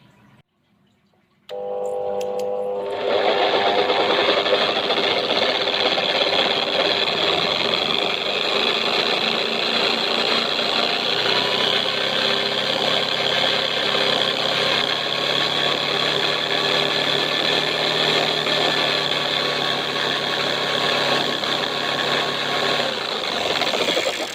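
Electric drill powering a homemade wood lathe. It starts up about a second and a half in, and about three seconds in it becomes louder and harsher. It runs steadily for about twenty seconds and then cuts off just before the end.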